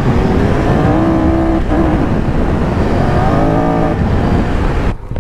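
Triumph Tiger 1200 Rally's three-cylinder engine pulling hard under the rider, its pitch holding about a second in, dipping, then climbing again around three seconds in as the throttle is worked, over heavy wind and tyre rumble. The sound falls away sharply near the end as the throttle is shut.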